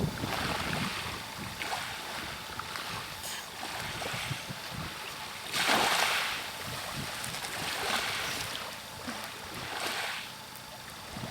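Small waves washing onto a beach, a hissing wash that swells and fades every few seconds, loudest about six seconds in.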